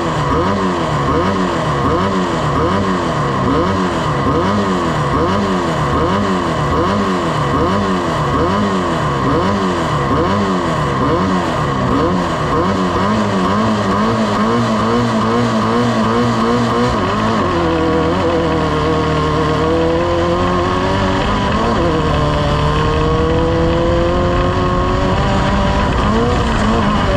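Race boat engine running hard. For the first half its pitch swells and drops about once a second, then it holds steadier with slower rises and falls.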